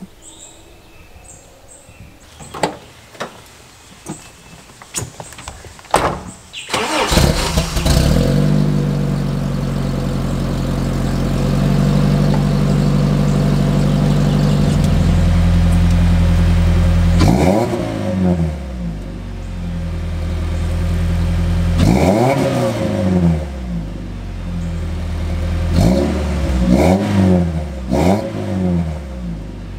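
1987 Toyota 4Runner's 22RE four-cylinder engine, built to stage 2.5, heard through a header, resonator, high-flow catalytic converter and Thrush 40 series muffler on 2.5-inch pipe. After a few light clicks it starts about seven seconds in and idles steadily for about ten seconds. It is then revved in a series of short throttle blips, which come quicker near the end.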